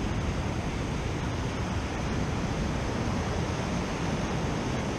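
Steady rush of ocean surf breaking on a rock jetty, mixed with wind noise on the microphone.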